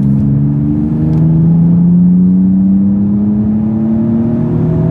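Nissan 350Z's 3.5-litre V6, through a stainless Japspeed cat-back exhaust, accelerating hard. The engine note climbs steadily in pitch, drops once near the end as the car shifts up a gear, then starts rising again.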